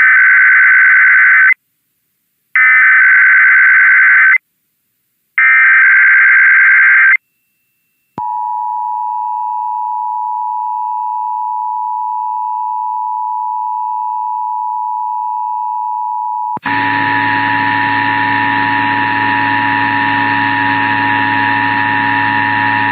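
Emergency Alert System SAME header: three short bursts of warbling data tones, each under two seconds, with gaps between them. Then the EAS two-tone attention signal is held steadily, marking the start of a required monthly test. About two-thirds of the way in, a loud humming noise joins the tone and stays under it.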